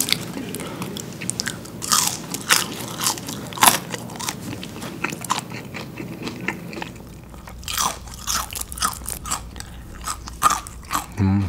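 Close-up eating sounds: a string of short, sharp crunches from biting and chewing crinkle-cut fries and freshly fried chicken, with soft chewing between the bites.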